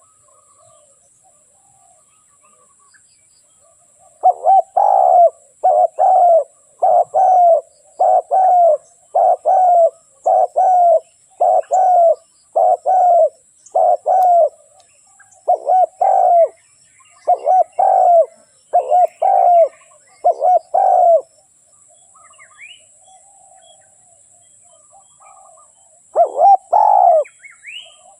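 Spotted dove cooing: a long run of loud, low, hollow coo phrases beginning about four seconds in and stopping about two-thirds of the way through, then starting again near the end. Faint chirps of other birds can be heard in the gaps.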